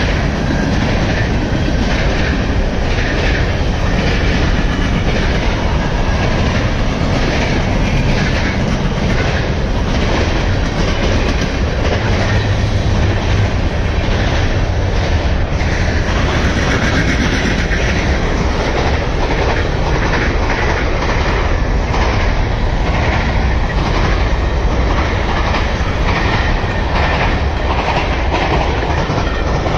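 Freight cars of a fast CSX manifest train rolling past, empty centerbeam flatcars and then covered hoppers, with the wheels clicking in a steady, rapid rhythm over the rail joints under a continuous loud rumble.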